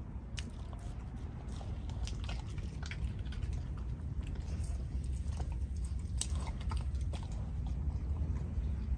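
Belgian Malinois licking and gnawing a frozen food block, with scattered crunching and clicking bites over a steady low rumble.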